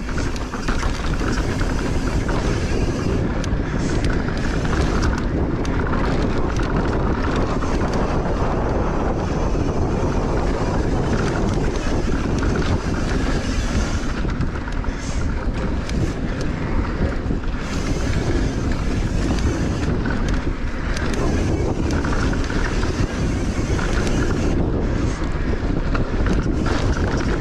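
Wind rushing over the microphone and the steady rumble of mountain-bike tyres rolling fast over a dry, dusty dirt trail, with brief rattles of the bike over bumps.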